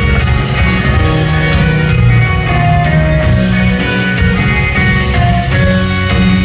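Live band playing an instrumental passage: electric and acoustic guitars over bass notes and a steady drum beat.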